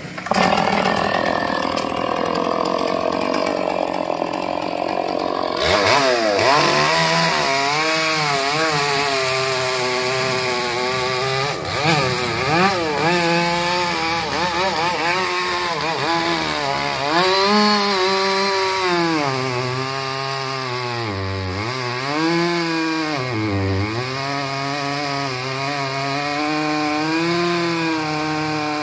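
Petrol chainsaw with a 36-inch Holzfforma light-cut bar cutting into a large tree trunk. The engine's pitch keeps rising and falling as the chain loads up in the wood, and it dips sharply twice about three quarters of the way through.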